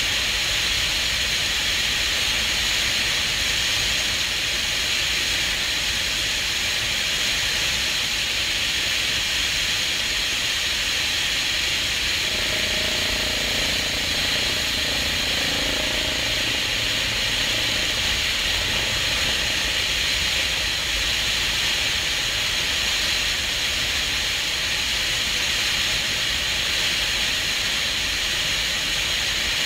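Helicopter in low flight heard from a camera mounted at its open side: a steady hiss of rushing air and engine noise, with a low rumble underneath.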